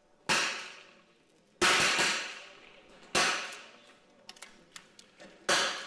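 .22 rimfire smallbore target rifles firing: four sharp shots, each trailing off in about a second of echo, with a few faint clicks between them.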